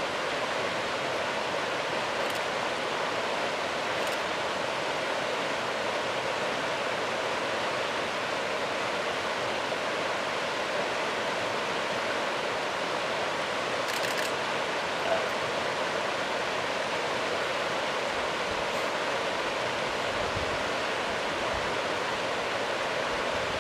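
River rushing steadily, with one brief click about two-thirds of the way through.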